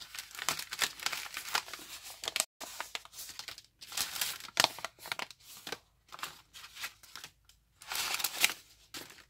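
Stiff, wrinkled coffee-dyed paper envelopes, dried in the oven, crinkling and rustling as a hand presses and shuffles them, in uneven spells with brief pauses.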